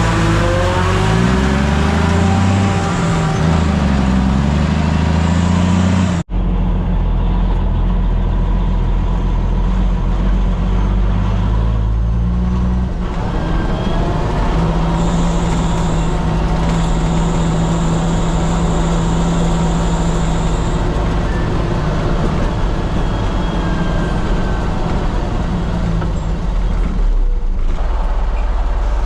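Heavy farm machinery engine running steadily under load, its pitch wavering for the first few seconds. About six seconds in the sound breaks off abruptly and picks up again as a steady low drone with a faint high whine for a few seconds in the middle.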